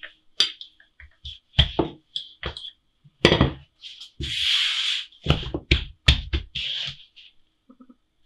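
A wooden rolling pin rolling yeast dough on a wooden countertop: a series of knocks and thuds of the pin and dough on the counter, with a longer scraping rub about four seconds in as the dough is lifted and turned.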